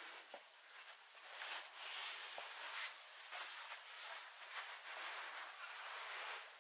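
Faint hiss and rustling with a few soft clicks, rising and falling: handling noise from a camera carried around the motorcycle. No engine is running.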